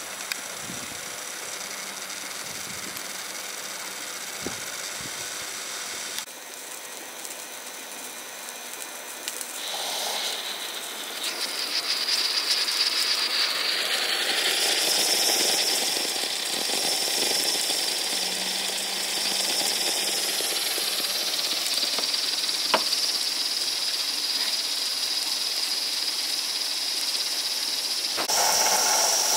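Battery stack fan running on the chimney of a live-steam model BR Class 7 Britannia locomotive while the boiler is raising steam. From about ten seconds in, a louder steady steam hiss takes over as pressure builds and the blower is opened, rising again near the end.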